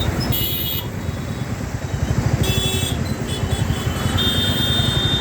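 Road traffic: motorbike and vehicle engines running with a steady low rumble, with short horn toots about half a second in and in the middle, and a longer high horn tone near the end.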